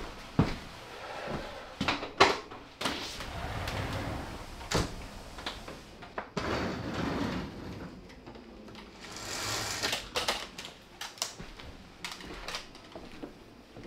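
Footsteps and scattered knocks and clicks indoors, with the rolling swish of a glass sliding door.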